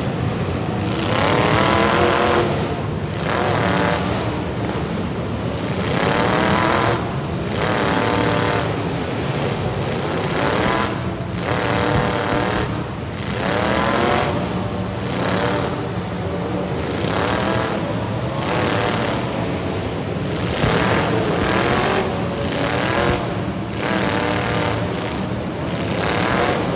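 Demolition derby cars' engines revving hard, over and over, against the steady rumble of several engines running at once.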